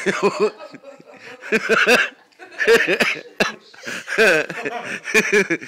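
People laughing hard, in about five loud bursts of quick rhythmic pulses.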